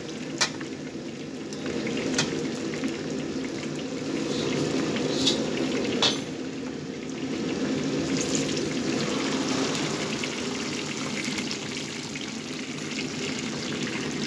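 Gas wok burner running steadily under a hot wok while the wok is cleaned, with water hissing and sizzling in the pan. A few sharp clicks land in the first half.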